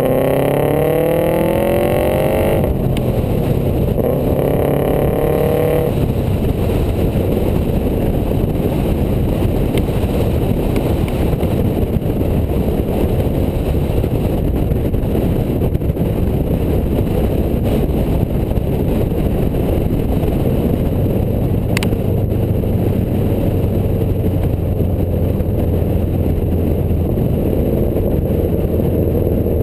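2002 Subaru WRX turbocharged flat-four exhaust (Invidia downpipe, SRS mid-pipe, custom resonator axle-back), heard from outside at the rear of the car. It revs up through two gears in the first six seconds, then settles to a steady cruising drone under heavy wind noise on the microphone. A single sharp tick comes about three-quarters of the way through.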